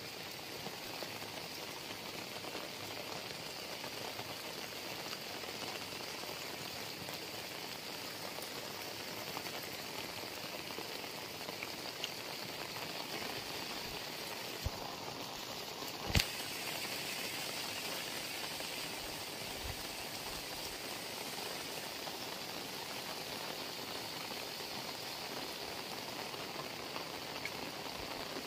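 Heavy rain falling steadily on flooded rice paddies and surrounding foliage, an even hiss. A single sharp tap stands out a little past halfway.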